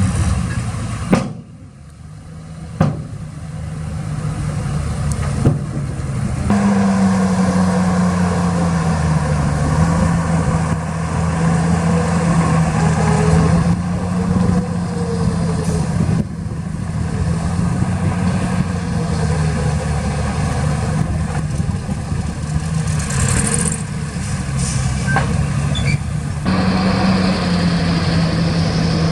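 Heavy construction machinery's diesel engine running steadily. It steps up in pitch about six seconds in and again near the end, with a few sharp knocks in the first few seconds.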